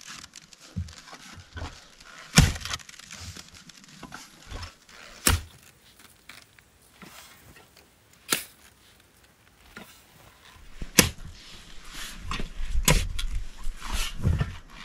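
Metal shovel blade driving into and scraping sandy soil: sharp strikes about every three seconds with the hiss of sliding sand between, coming quicker near the end.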